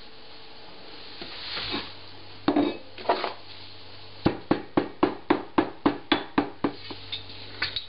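Marble pestle crushing fresh rosemary in a marble mortar: a few grinding scrapes, then from about halfway a steady run of sharp knocks, about four a second, stone on stone.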